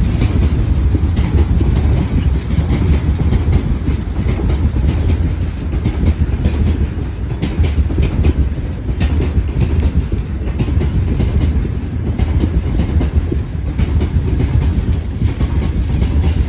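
Freight train of loaded open gondola wagons rolling past: a steady rumble of steel wheels on the rails with faint, irregular clicks as the wheels cross rail joints.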